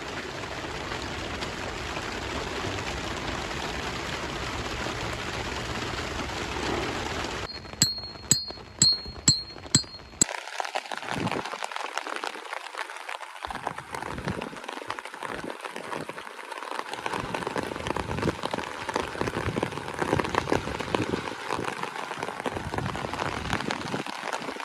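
Steady rain. About eight seconds in, it breaks off for a quick run of about five sharp, ringing clicks, the loudest sounds here, and then the rain resumes as a sparser fall of separate drops striking a surface.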